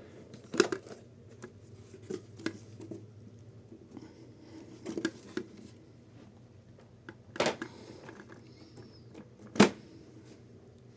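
A few separate light knocks and clicks as the small folding typewriter is handled, spaced irregularly with a sharper knock near the end.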